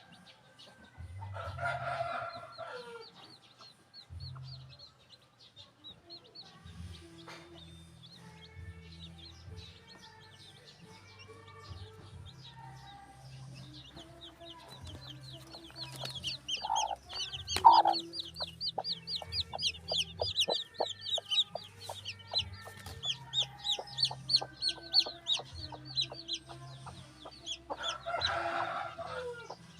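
Newly hatched chicks peeping, a fast run of short, high, falling peeps that grows loud and dense from about halfway in. A rooster crows once about two seconds in and again near the end, and there are a couple of loud clucks in between.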